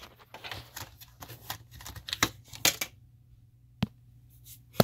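A clear plastic jewel-box case for a model locomotive being handled: scattered light rustles and clicks of plastic, a brief quiet, then two sharp clicks near the end.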